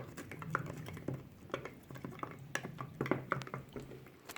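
A utensil stirring slime powder into water in a container: irregular light clicks and scrapes, several a second.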